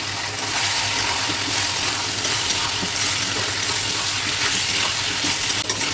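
Broiler chicken pieces sizzling in hot oil in a kadai, a steady hiss as the water released by the meat fries off.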